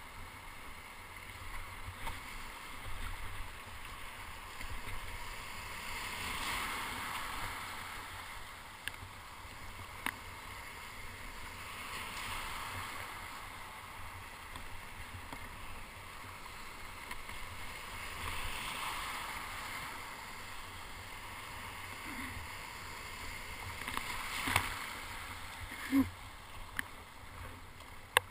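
Surf foam and small breaking waves washing and splashing around a kayak's hull, the rush of water swelling every few seconds. A few sharp knocks or slaps come near the end.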